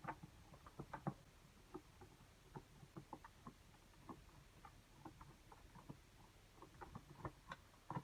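Faint, irregular small clicks and taps, a few a second and a little louder about a second in and near the end, of small keyboard parts being handled.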